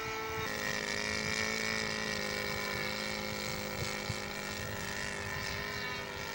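Engine of a radio-controlled scale model airplane in flight, running steadily; its note shifts pitch about half a second in and then holds.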